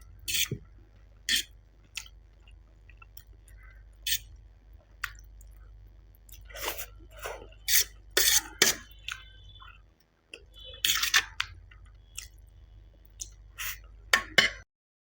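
Close-miked chewing of Maggi instant noodles: irregular wet mouth clicks and smacks, a few seconds apart and clustered at times, stopping abruptly near the end.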